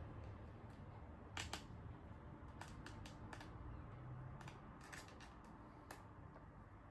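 Faint, irregular light clicks and taps from working a screwdriver on a MacBook's small screws, over a low steady hum.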